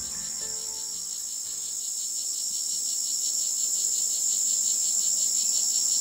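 Jungle insects trilling: a high, rapidly pulsing chorus that grows slowly louder. Soft music notes fade out in the first second or two.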